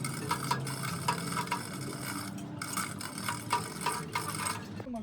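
Workshop clatter: rapid, irregular metallic clinks and rattles over a steady low machine hum.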